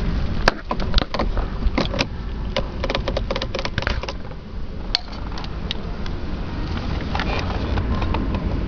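Handling noise: a quick run of clicks and knocks in the first few seconds, then a few single sharp clicks, over a steady low rumble.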